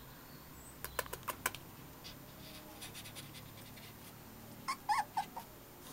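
Bedlington whippet puppy whimpering, a few short high whines close together near the end. A quick run of sharp taps comes about a second in.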